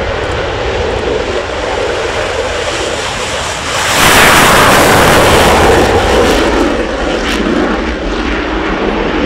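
F-16 fighter jet's engine on its takeoff run, a steady jet noise that becomes much louder about four seconds in as the jet lifts off and passes low and close, then eases slightly as it climbs away.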